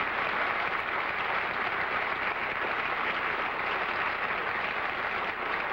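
Studio audience applauding steadily, a dense, even clatter of many hands clapping.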